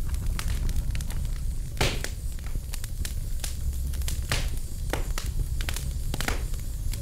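Irregular crackling clicks, several a second and some louder than others, over a steady low rumble.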